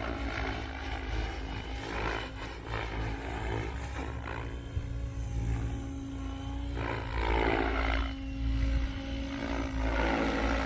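GooSky RS7 RC helicopter in flight: the rotor and motor give a continuous buzzing whine whose pitch dips and rises several times as the rotor is loaded through aerobatic manoeuvres.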